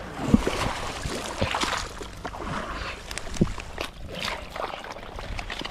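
Shallow, weedy water sloshing and splashing as people wade and work a fishing net, with scattered small splashes and a few low thuds.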